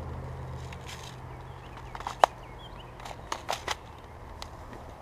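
A scatter of sharp clicks and snaps: one loud crack about two seconds in, then a quick run of three about a second later and a lone tick near the end.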